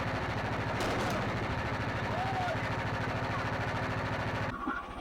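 Portable sawmill's engine idling steadily with an even, rapid low pulse, ending abruptly about four and a half seconds in.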